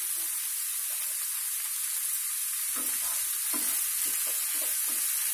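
Boiled bottle gourd pieces and onions sizzling in oil in a nonstick frying pan, with a spatula stirring and scraping through them. The strokes come in quick succession from a little past halfway in.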